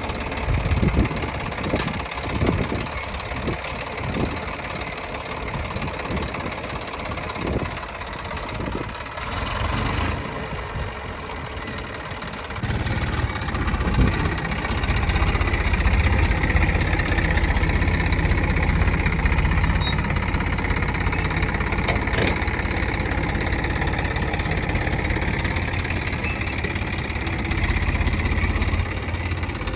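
An engine running. At first it is broken up by irregular low thumps and knocks; a little before halfway it settles into a steady, louder low drone with a higher whine over it.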